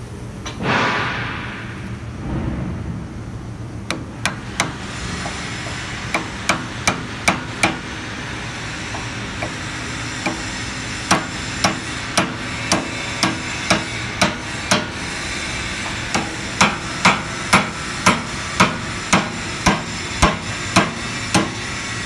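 Hammer tapping a steel punch driven down into the centre of the splayed strands of a steel wire rope in a threaded socket fitting held in a vise. Sharp metal-on-metal blows start about four seconds in and come in runs of about two to three a second with short pauses between; a brief noise is heard about a second in, before the blows.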